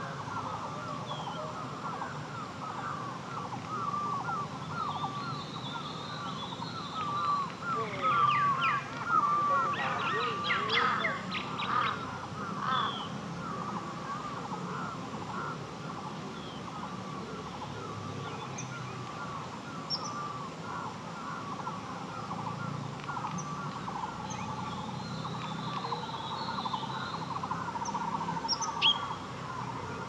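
Wild birds calling from the forest in a dense chatter of short, repeated chirping notes, busiest and loudest in the first half, with a few higher chirps scattered through. Under it runs a steady low hum.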